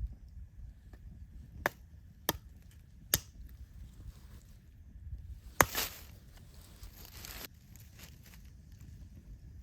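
Sharp knocks of firewood being chopped or split, three in quick succession, then a harder strike about halfway through followed by a couple of seconds of rustling noise.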